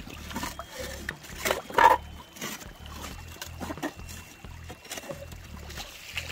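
Background music with a repeating bass beat, over a shovel digging and scraping into creek gravel and rock, loudest in two strokes about a second and a half in.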